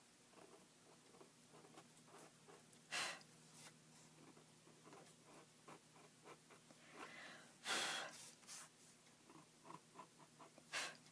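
Knife blade scraping old paste residue off the paper of a book page: faint, scratchy little strokes, with three brief louder swishes about three, eight and eleven seconds in.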